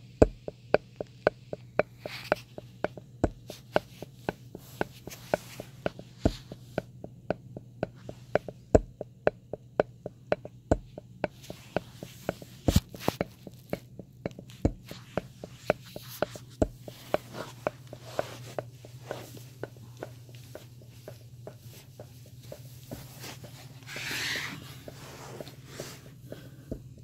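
Paradigm Servo-15 v.2 subwoofer making a fault noise: sharp clicks repeat about two to three times a second in a heartbeat-like rhythm, with a louder click every couple of seconds, over a low steady hum. The clicking happens with no input signal connected, and its cause is not yet found; the amplifier's capacitors show no bloating or leaks.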